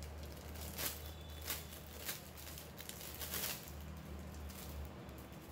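Clear plastic bag crinkling and rustling as it is opened by hand and a helmet visor is slid out, in several short crackles, over a steady low hum.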